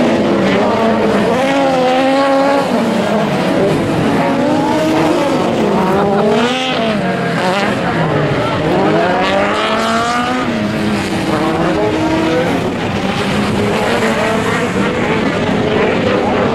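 Several Volkswagen Beetle-based autocross cars racing, their engines revving hard with overlapping pitches that rise and fall as they accelerate and shift.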